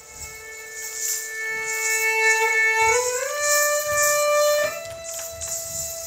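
Erhu (Chinese two-string bowed fiddle) playing slow, held notes that swell in and then slide upward, gliding to a higher note about halfway through and rising again near the end.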